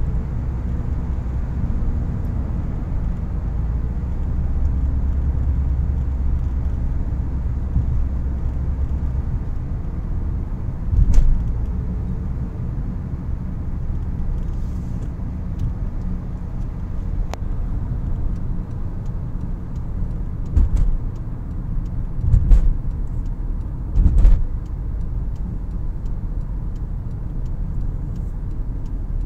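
Steady low road and engine rumble heard from inside the cabin of a moving car. A few short dull thumps stand out: one about 11 seconds in and three more in quick succession past the 20-second mark.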